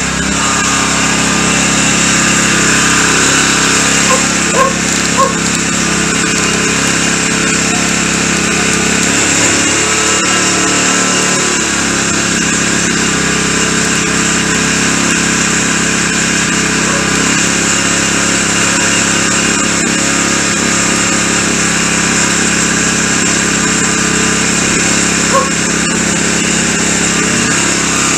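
A small motor running steadily at one speed, loud and even throughout, with a few light clicks about four to five seconds in and again near the end.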